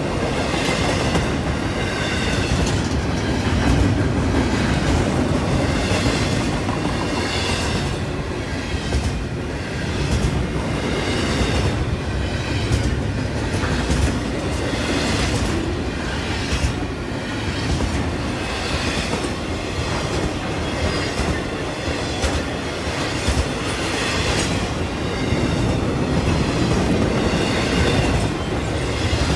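Double-stack intermodal freight train rolling past steadily, the container cars' wheels rumbling and clacking over the rails, with a wavering high-pitched wheel squeal at times, most in the first third and again near the end.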